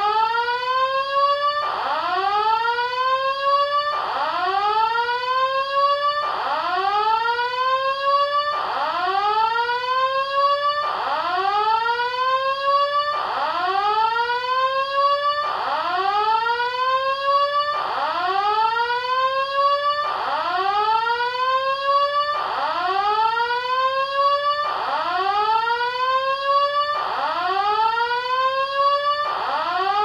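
Electronic alarm tone sounding a repeated whoop: each tone sweeps quickly up in pitch and then levels off, about two seconds long. The whoops follow one another without a break.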